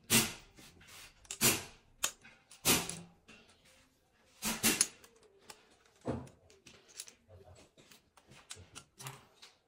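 Sharp metallic clicks and clacks of small engine valvetrain parts being handled and set down, several loud ones in the first five seconds, then lighter ticks.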